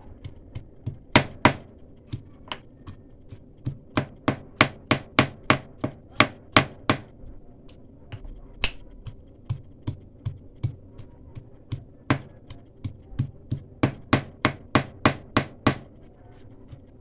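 Pestle pounding garlic and ginger in a stone mortar: a steady run of sharp knocks, about three a second, some strokes much louder than others.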